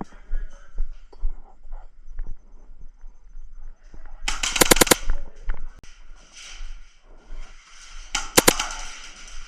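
Airsoft guns firing: scattered single shots and BB hits, then a rapid full-auto burst about four seconds in and a shorter burst of about three shots near the end.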